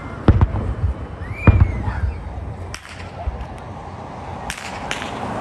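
Aerial fireworks going off in a show: a series of sharp bangs, the loudest about a second and a half in, with further cracks near three seconds and twice near the end.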